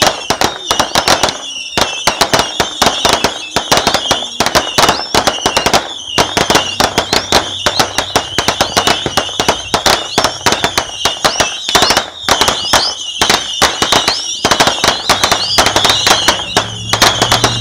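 Ground-launched consumer fireworks going off in a rapid, unbroken string of sharp pops and crackles, with a high wavering whistle running over them.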